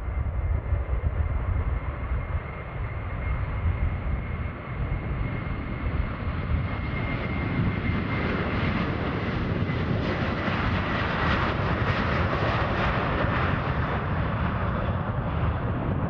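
Airbus A330-200 twin-engine jet on its takeoff roll at takeoff thrust: a deep rumble under a steady high fan whine. The noise swells to its loudest as the jet passes, around ten to thirteen seconds in, and the whine drops a little in pitch as it goes by.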